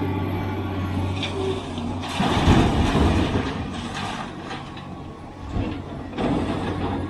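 Sumitomo SH490 excavator's diesel engine running steadily as the machine swings. About two seconds in comes a loud rush and rumble of a bucketful of soil being dumped into a dump truck's bed, and a shorter rush follows near the end.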